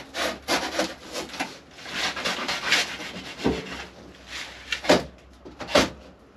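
Thick cardboard box being cut open with a blunt blade: a run of irregular scraping, rasping strokes as it drags through the card, with a few sharper rips in the second half.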